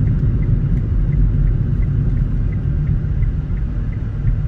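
Steady low rumble of a car driving, heard from inside the cabin, with a faint light ticking about three times a second.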